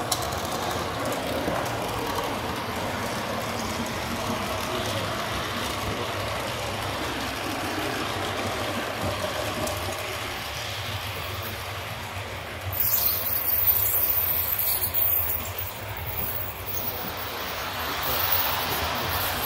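Märklin H0 Flying Scotsman model locomotive running with its sound decoder switched off: only the whirr of its motor and the rolling of its wheels and coaches on the track. The rolling noise is steady, growing louder and hissier for a few seconds about two-thirds of the way through.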